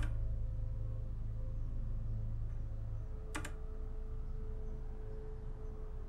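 A low, steady drone with held higher tones, cut by two sharp clicks: one at the start and one about three and a half seconds in. The low part of the drone drops away about three seconds in, and a new held tone comes in with the second click.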